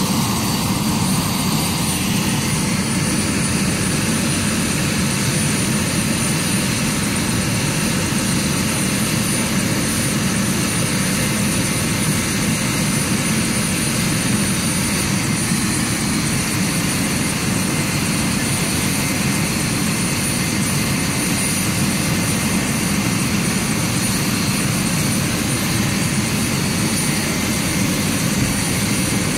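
Medical helicopter running, a loud steady rotor and turbine noise with a high whine that holds unchanged throughout.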